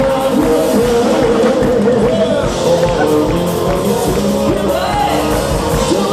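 Rock-style song playing loudly: a singer's voice over guitar and a steady drum beat.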